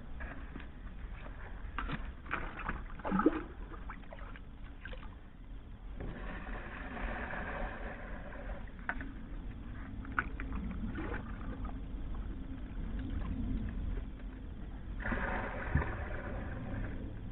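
Water poured out of a plastic bucket in two pours, each a few seconds of rushing splash, with a few knocks from handling the bucket before the first.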